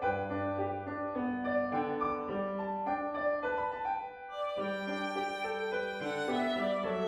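Violin and piano playing a gentle melodic arrangement, with a short dip about four seconds in before a held note carries on.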